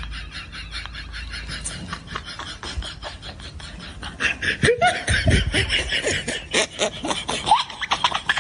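A man laughing hard in quick repeated breathy pulses, louder from about halfway through.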